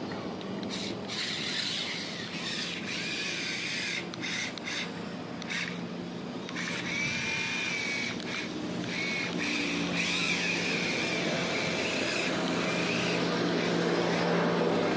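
A small electric motor whirring, with a steady low hum and a high whine that wavers in pitch and grows stronger in the second half, and a few clicks.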